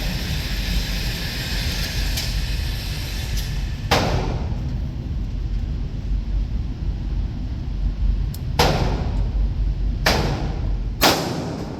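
Four gunshots at irregular intervals, about 4, 9, 10 and 11 seconds in, over a steady low rumble.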